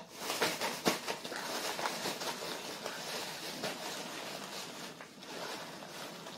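A toddler eating rice with training chopsticks: a few sharp clicks of the chopsticks against a ceramic rice bowl in the first second, then several seconds of soft, steady noise.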